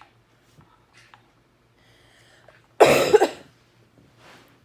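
A single loud cough from a person about three seconds in, lasting about half a second, followed by a softer breath; a few faint clicks come before it.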